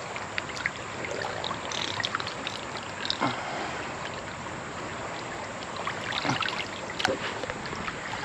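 River water flowing and babbling steadily, with scattered small splashes and clicks.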